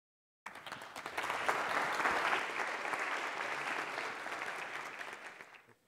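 Audience applauding, cutting in abruptly about half a second in and dying away near the end.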